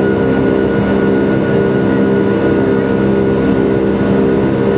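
Airbus A321-211's twin CFM56 turbofan engines heard inside the passenger cabin during the climb after takeoff: a steady drone with several held tones over an even rush of air.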